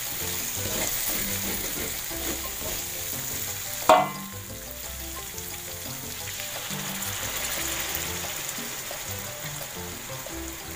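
Chilli spice paste frying in oil in a wok while a spatula stirs it: a steady sizzling hiss. About four seconds in, one sharp clang of the spatula striking the wok.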